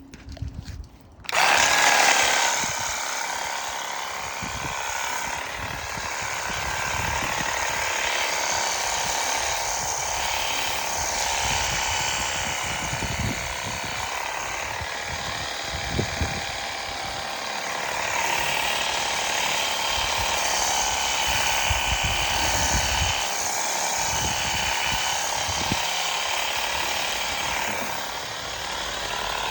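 Ronix 8930 cordless pressure washer switching on a little over a second in, its motor-driven pump then running steadily with a whine over a dense hiss.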